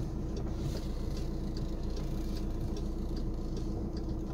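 Van engine running at low speed while reversing slowly, heard inside the cab as a steady low hum with faint scattered light ticks.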